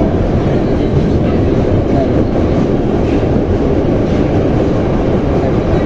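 81-717/714 Moscow Metro train running between stations, a steady loud rumble of wheels on rails and running gear in the tunnel.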